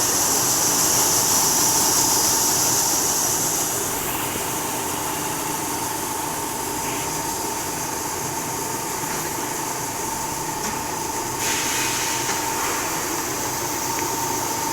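Glass bottle brushing and washing machine running: a steady motor hum with a constant whine and a high hiss. The hiss drops about four seconds in and picks up again near the end.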